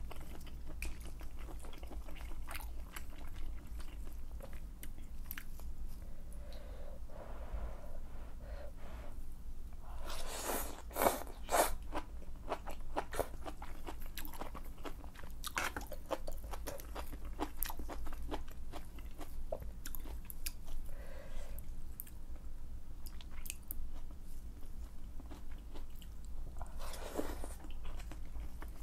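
Close-miked chewing of malatang: wet mouth clicks and chewing sounds throughout, with a louder flurry about ten seconds in and again near the end. A steady low hum runs underneath.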